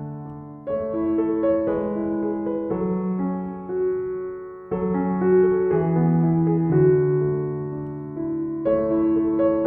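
Soft background piano music: sustained chords and a slow melody, with a new phrase struck about every four seconds.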